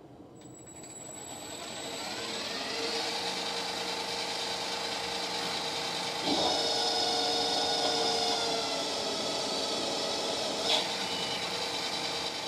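CNC-converted mini lathe spindle spinning up in high gear with a rising whine, then running steadily as a carbide insert turns steel. The sound grows louder about six seconds in as the cut takes hold, with a short click near the end. The cut is too heavy for the lathe in high gear, and the insert's corner breaks.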